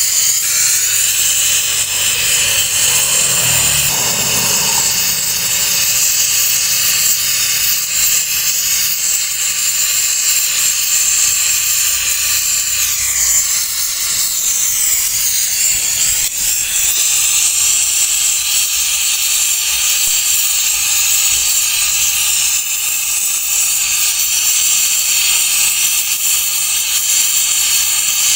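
Compressed nitrogen hissing steadily as it is blown through a refrigerator's clogged refrigerant lines to flush them out.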